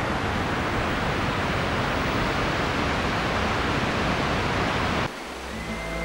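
Water rushing down a large travertine waterfall, a steady roar. About five seconds in it cuts off suddenly and music with long held notes comes in.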